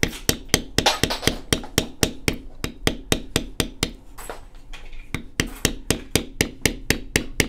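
Mallet striking a Barry King number 2 checkered leather beveler in quick, even taps, about four a second, as the tool is walked along the cut lines of a leather belt to bevel them. The tapping pauses briefly about four seconds in while the tool is repositioned, then carries on.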